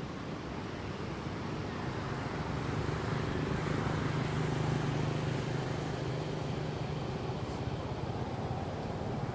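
Engine drone of a motor vehicle, a steady hum that grows louder over the first few seconds and eases off near the end.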